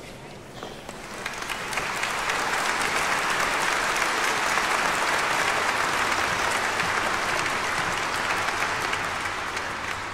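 A large theatre audience applauding: many hands clapping, the sound swelling over the first couple of seconds, then holding steady and easing a little near the end.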